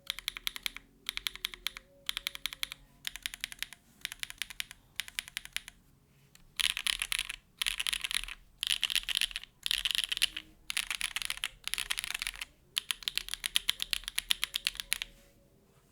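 Typing on a custom mechanical keyboard: TKD Cycle7 with carbon-fibre plate and case foam, hand-lubed SWK Jieum V2 switches and GMK Grand Prix keycaps. The keystrokes come in short rapid bursts, each under a second, with brief pauses between them. The bursts are louder from about six and a half seconds in.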